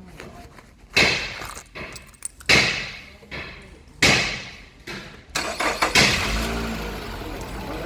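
Car engine being started after its corroded battery terminals were cleaned and the battery boosted: a few loud thumps about a second and a half apart, then the engine catches about five to six seconds in and runs steadily.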